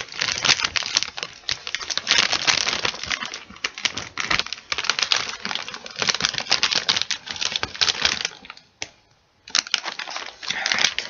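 A chip bag being crinkled by hand: dense, irregular crackling, with a short pause about eight and a half seconds in before it starts again.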